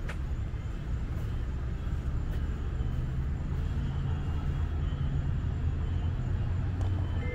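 Steady low rumble and hum of road traffic, with a few faint clicks.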